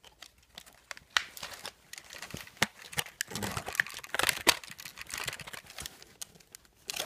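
Toy packaging wrap being handled and crinkled, an irregular run of crackles and sharper snaps, busiest around the middle.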